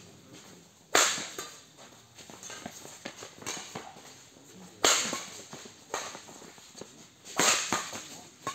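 Badminton rackets hitting a shuttlecock in a doubles rally: a series of sharp cracks, the three loudest about a second in, near the middle and near the end, with softer hits between.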